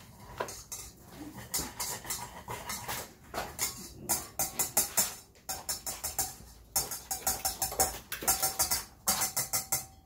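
Wire whisk beating fast against the inside of a stainless steel pot of hot water, a rapid clatter of metal on metal in bursts with short pauses.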